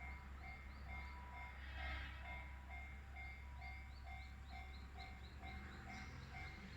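Japanese railway level crossing's electronic warning bell ringing in a steady rhythm, a little over two dings a second, over a low steady rumble.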